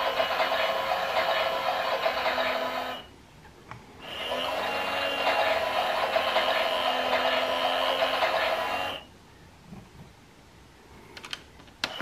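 Klein toy Miele Softtronic washing machine's small electric motor whining and rattling as it turns the drum through a wash. It runs, stops for about a second, runs again for about five seconds and stops again. A few light clicks come near the end before it restarts.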